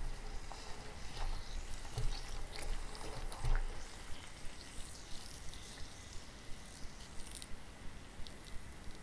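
Whole peeled Hallabong on wooden chopsticks being rolled through hot sugar syrup in a pot: a sticky crackling and squishing from the syrup, with a couple of dull bumps about two and three and a half seconds in.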